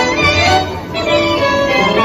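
Tango music from a tango orchestra, with bandoneon and violins playing held, sliding melodic lines; it briefly softens about a second in.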